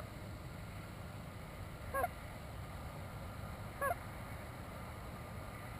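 Goose honks: three single short calls, each breaking sharply in pitch, about two seconds apart, over a steady low background noise.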